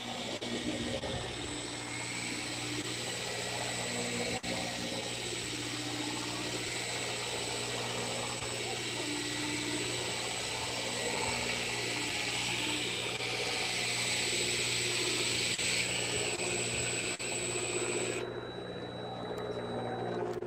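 Steady drone of the fishing boat's engine, with a high hiss over it that cuts off suddenly near the end.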